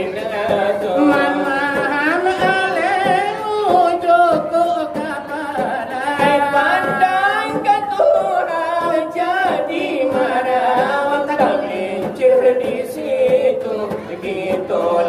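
Shalawat dulang: voices chanting a long, ornamented Minangkabau devotional melody, with pitch wavering and sliding through drawn-out phrases, over light taps on a brass tray (dulang).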